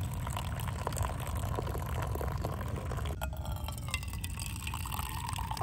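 Tea poured from a teapot into a small glass: a running trickle with a steady pitch at first, then from about three seconds in a pour whose pitch rises slowly as the glass fills.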